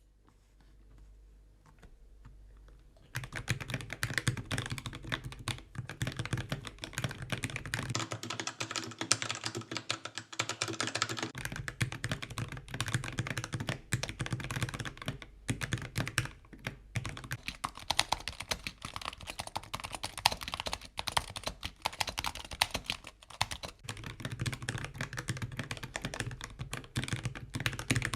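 Mechanical keyboard being typed on quickly and continuously as a typing sound test, starting about three seconds in, with a dense run of key clicks and clacks that stops at the very end.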